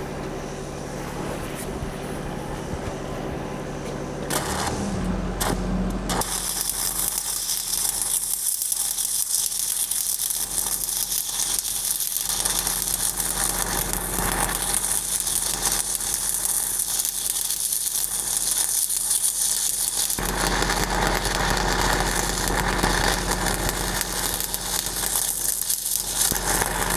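A steady hum at first. About five seconds in, a stick-welding arc strikes after a couple of short ticks and then burns steadily with a dense crackle as the electrode runs downhill on a pipe joint. Its tone shifts about twenty seconds in.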